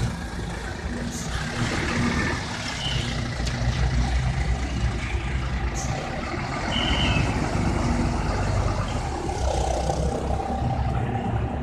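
Heavy bus engine running with road traffic noise, and two short high beeps about three and seven seconds in. No telolet horn melody is heard.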